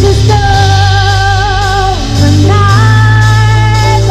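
A woman singing a pop ballad into a microphone with a live band of electric bass and drum kit, holding two long notes one after the other over a steady bass line.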